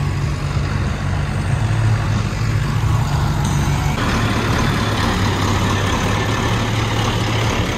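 Diesel tractor engines running steadily at idle, a continuous low rumble. About four seconds in the sound changes abruptly to a close Massey Ferguson 1150's exposed V8 diesel idling.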